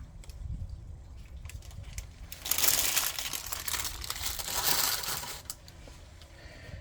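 Crinkling and rustling of a bag of dry ingredients, with a louder spell of dry hissing and pattering from about two and a half to five and a half seconds in, as of seed or grain being poured into a mixing bowl.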